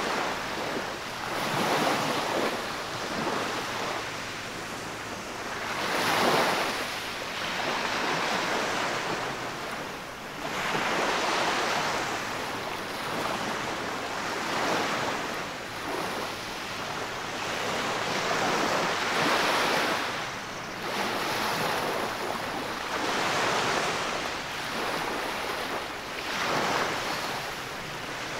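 Small waves washing up a sandy beach at the water's edge, foamy water surging over the sand and draining back, one swell about every four seconds.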